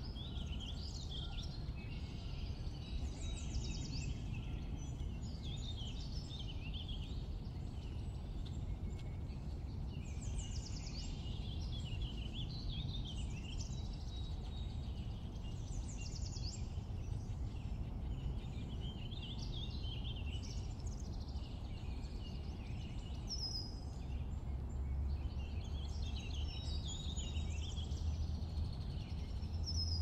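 Wild songbirds singing in short, varied phrases every few seconds over a steady low background rumble.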